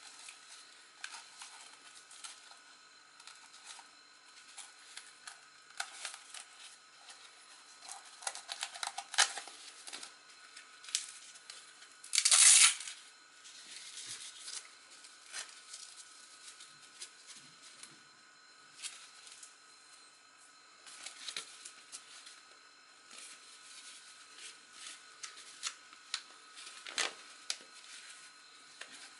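Hands handling a black fabric storage pouch and a foldable flash reflector: scattered rustles, light clicks and scrapes of the cloth, with one loud rasp lasting about half a second about twelve seconds in.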